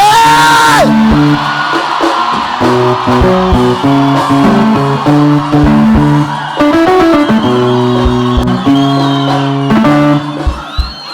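Music led by guitar, with low notes underneath, moving from chord to chord.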